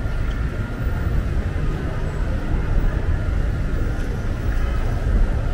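Steady street traffic with a heavy low rumble.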